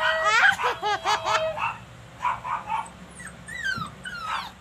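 Dog whining and yipping: a long held whine with quick yelps over it in the first second and a half, then a run of high, quickly falling whimpers near the end.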